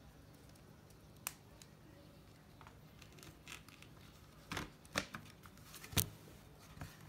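Scattered sharp clicks and knocks of mechanical keyboard parts being fitted together by hand, sparse at first, then a quick cluster of louder ones about four and a half to six seconds in, the loudest about six seconds in.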